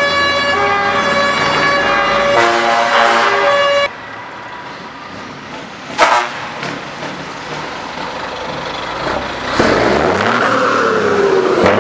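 A truck's musical air horn plays a tune of changing notes for about four seconds. After a cut, a diesel truck engine revs through a loud exhaust, with a sudden loud blip about six seconds in. Near the end its revs climb and then fall away.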